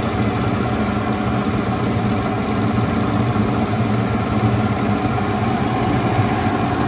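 Stirling engine running steadily on its test rig, together with the electric radiator cooling fan, an even, unchanging running sound.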